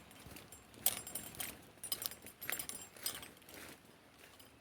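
Light metallic jingling and clinking of a hiker's gear as he walks, in irregular clicks that die down near the end.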